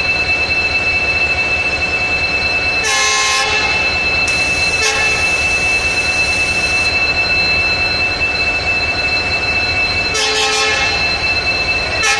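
Horn of an approaching WDP4D diesel locomotive sounding short blasts: a half-second blast about three seconds in with a brief one soon after, then the same pair again about ten seconds in. Under it runs a steady high-pitched tone and a low rumble.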